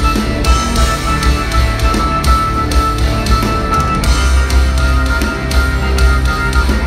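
Progressive metal band playing live: distorted electric guitar, bass guitar and drum kit, with frequent drum hits over a dense, loud wall of sound.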